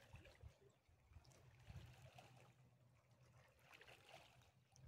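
Near silence with faint lapping of small waves against a rocky lakeshore.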